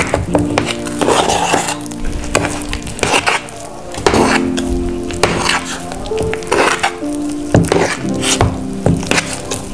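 Hand squeezing and kneading soft, wet mandazi dough in an aluminium pot: irregular squelching strokes about once or twice a second, over background music.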